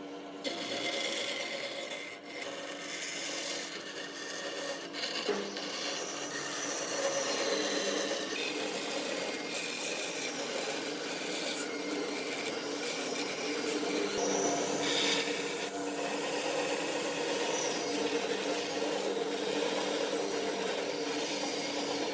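A hand tool or abrasive rubbing and scraping continuously across wood, with a few sharp clicks along the way.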